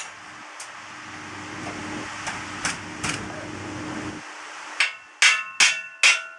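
A metal fan frame being worked into a cut opening in a truck wall, knocked four times in quick succession near the end, each a sharp metallic clank that rings. Before that, a steady mechanical hum with a few light knocks; the hum stops about four seconds in.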